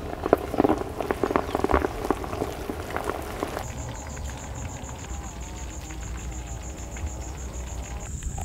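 Dense crackling and popping for the first three and a half seconds, then an abrupt change to an insect chirping: a steady, rapid pulsed trill, high-pitched.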